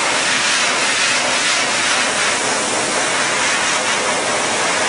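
Steady rush of running water spraying from a hose or tap into a dog-grooming tub.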